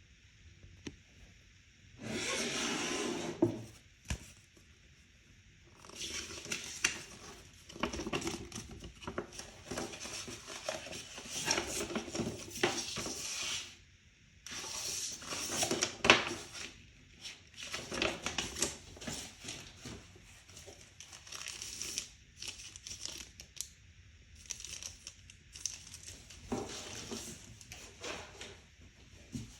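Packaging being unwrapped and handled: crinkling plastic and rustling, tearing wrap in irregular bursts with short pauses, and scattered sharp clicks and knocks, the loudest about halfway through.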